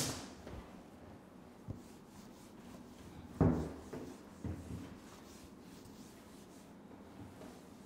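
Wooden-backed whiteboard duster rubbing across a whiteboard, erasing marker writing, with a few soft knocks; the loudest is about three and a half seconds in.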